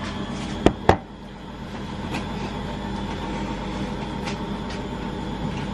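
A steady hum with a few level tones, with two sharp knocks close together just under a second in and a few faint clicks later.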